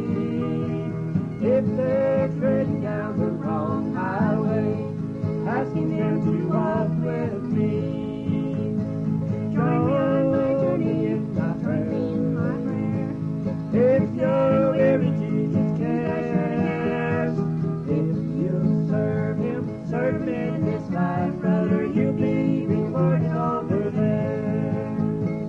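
Country-style music with plucked acoustic guitar, playing steadily.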